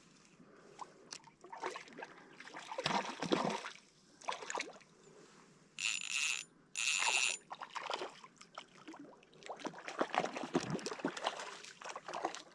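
Water splashing and trickling unevenly at the lake's edge, with two short hissing buzzes about six and seven seconds in.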